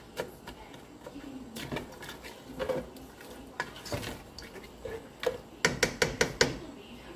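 A spatula stirring diced onion and mixed vegetables in a pot, with scattered clicks of the utensil on the pot and a quick run of about five knocks near the end.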